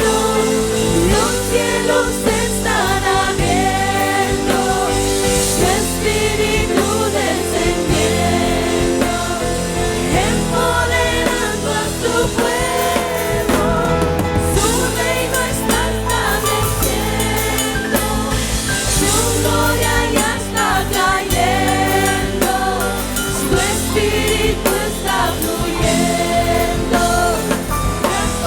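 Christian worship music: sung vocals over a band with a drum kit and steady bass.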